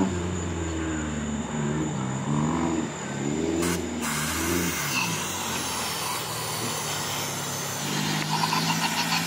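Toyota AE86 Corolla's engine revving up and down several times as the car drifts on grass, then running more steadily with a constant drone near the end.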